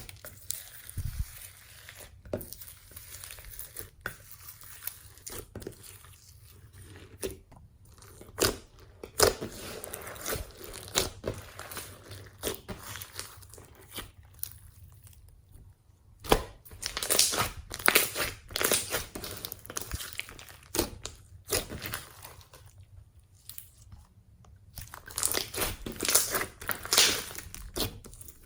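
Hands kneading and pressing glossy slime with floam beads worked into it, making many small, irregular clicks and pops that come in busier, louder spells around the middle and near the end.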